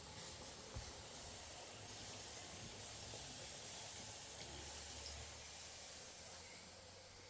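A steady, faint hiss with a low hum underneath.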